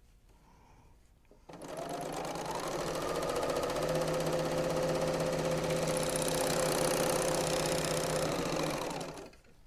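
Serger (overlocker) sewing a three-thread overlock seam through quilt fabric squares. The motor starts about a second and a half in and speeds up over the next couple of seconds. It then runs steadily at a fast stitching rattle before slowing and stopping near the end.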